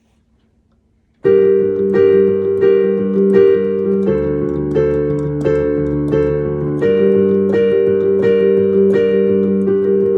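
Piano playing a battle-scene effect for a children's play: after about a second of silence, repeated chords struck at a steady beat over a repeated bass note. The bass drops lower about four seconds in and comes back up near seven.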